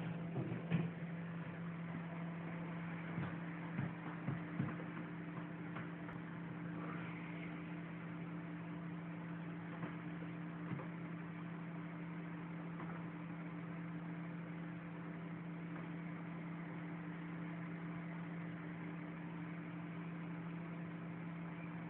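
Steady low electrical hum with a second, higher tone above it, with a few short soft knocks in the first five seconds.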